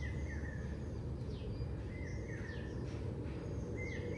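A bird chirping repeatedly, short calls in pairs about every two seconds, over a steady low background rumble.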